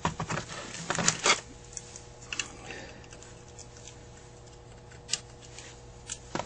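Parts of a Carter AFB carburetor being handled on a workbench: a cluster of light metal clicks and knocks in the first second and a half, then a few single clicks spaced out over the rest.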